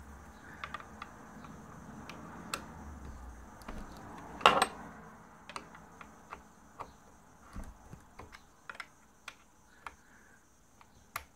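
A 5 mm Allen key turning the bottom adjusting screw of a composite door's hinge, screwing it in to raise a dropped door. Irregular metallic clicks and taps come as the key and a metal bar used for leverage knock against the hinge, with one louder clack about four and a half seconds in.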